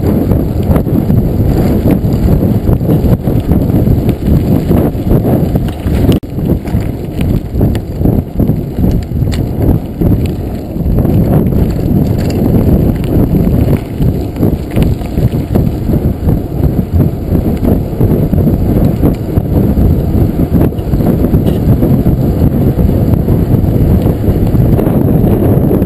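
Full-suspension mountain bike riding over a dirt and gravel road: a steady, muffled rumble of tyres on gravel with frequent knocks and rattles as the bike jolts over bumps.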